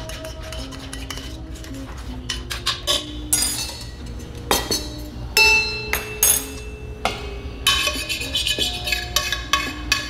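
A metal spoon and lid clinking and clanking against a stainless steel skillet as scrambled eggs are scooped out. There is a sharp ringing clank about five seconds in, over background music.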